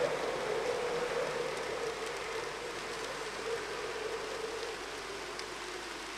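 Steady rushing outdoor background noise with a faint wavering hum, easing slightly near the end.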